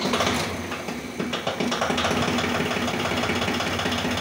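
Yanmar YM1820 compact tractor's diesel engine, just caught after glow-plug preheating, settling into a steady, even idle, running like clockwork.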